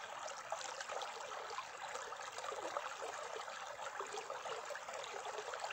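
A small mountain stream burbling and trickling over stones, a steady rush of water with many small splashes.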